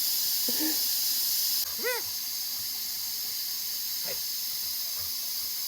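Steady background hiss with a few short, rising-and-falling voice-like calls, the clearest about two seconds in.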